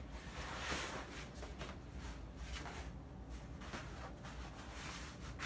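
Soft, uneven rustling and scuffing of a cloth belt bag being handled and opened.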